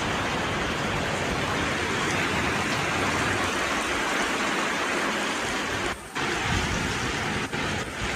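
Heavy tropical downpour: a loud, dense, steady hiss of rain, briefly dropping out about six seconds in.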